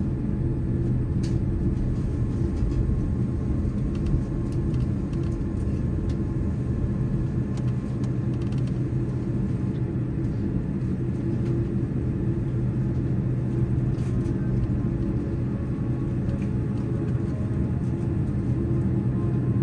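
Steady low rumble and hum inside the cabin of a Boeing 787-9 taxiing after landing, from the engines at idle and the rolling airframe, with a few faint ticks.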